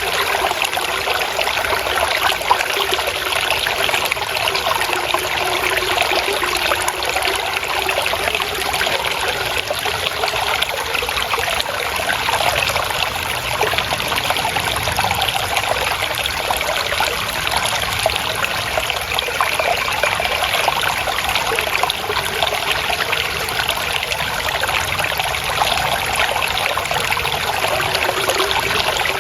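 Water trickling and splashing steadily, a small stream of water flowing over stones.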